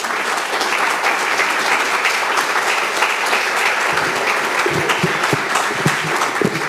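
Audience applauding: the clapping starts abruptly and holds steady.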